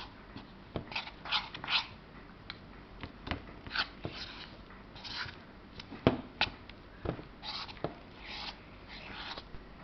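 Cornflour and maida batter being mixed in a bowl: irregular clicks and short wet, scraping sounds, a few each second.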